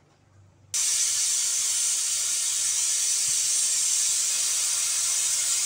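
Stovetop pressure cooker's weight valve whistling: steam starts hissing out suddenly just under a second in and keeps on steadily. This is the fifth whistle, the sign that the dal inside is cooked.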